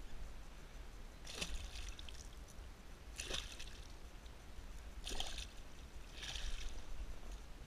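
A 4.1 kg pike thrashing at the water's surface as it is drawn in on the line, making short splashes about four times.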